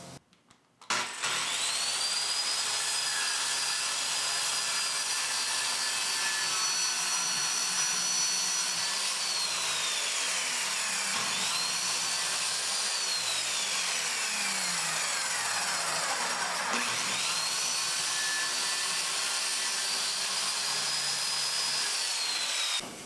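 Handheld circular saw cutting through a sheet of plywood. The motor spins up to a high whine about a second in. Twice the whine sags in pitch as the blade loads up in the cut, then recovers. It stops abruptly near the end.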